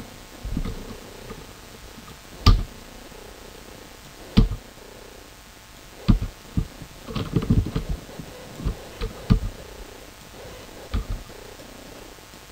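Irregular clicks and low thumps from a computer mouse and keyboard at a desk, about a dozen in all, with a quick run of them about seven seconds in.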